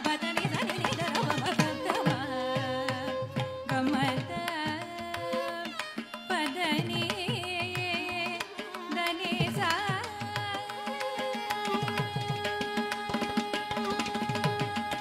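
Carnatic vocal music in raga Khamas: a woman's voice sings with heavily ornamented, gliding notes, shadowed by violin, over mridangam and ghatam strokes. In the last few seconds the voice and violin settle on one long held note.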